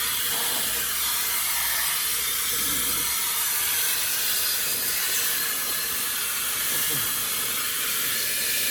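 Slim brushless hair dryer with a 108,000 rpm motor running steadily, giving an even rushing hiss of air.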